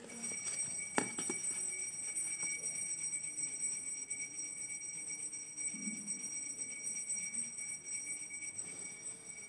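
Plastic ruler handled on paper, with a sharp click about a second in, and a pencil drawing lines along it. A steady high-pitched electronic whine runs underneath.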